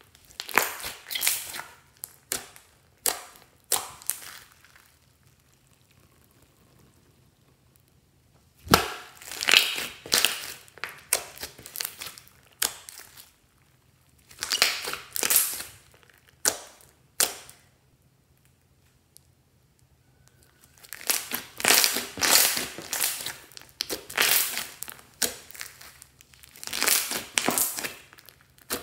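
Glossy glitter slime, clear slime tinted with eyeshadow, being stretched, folded and squeezed by hand, giving crackling and popping sounds in several bursts with quiet pauses between.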